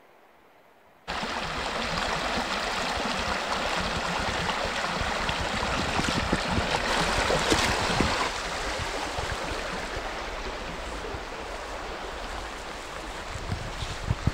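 After a quiet first second, a small forest stream rushes steadily. It is loudest six to eight seconds in, with a few knocks, then eases off.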